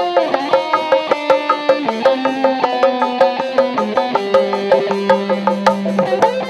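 Sundanese benjang procession music: drums beating a quick, steady rhythm under a held melody line that steps from note to note.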